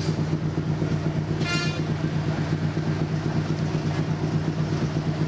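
Large river ferry's diesel engine running with a steady, pulsing low drone, with a short high toot about a second and a half in.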